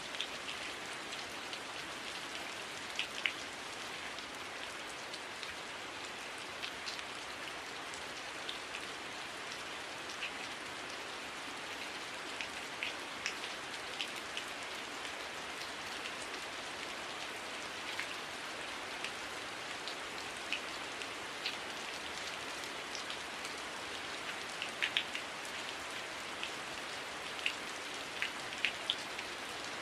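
Heavy rain falling steadily, a constant hiss with scattered sharp drips and drop impacts standing out every second or so.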